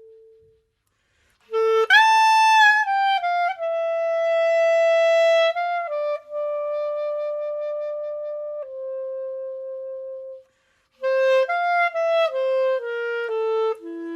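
Solo clarinet-like woodwind melody. Long held notes step downward, break off briefly, then a second phrase of shorter notes falls further.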